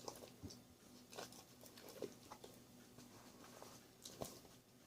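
Near silence with a few faint, scattered soft clicks and smacks.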